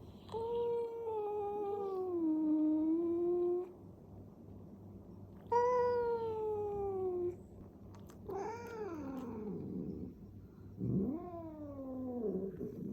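Cat caterwauling in a fight: four long, drawn-out yowls, each wavering and sliding down in pitch, with short pauses between them.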